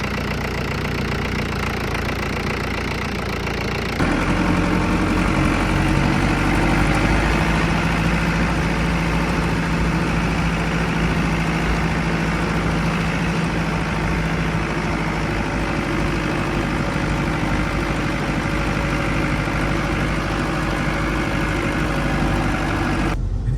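Vehicle engine idling steadily, getting louder about four seconds in.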